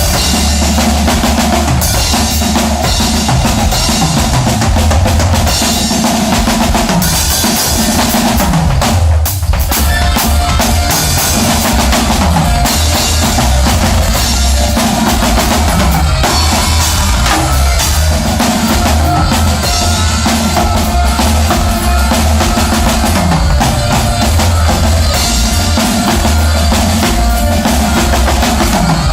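A conjunto band playing a song at full volume, with drum kit and bass to the fore and a steady beat.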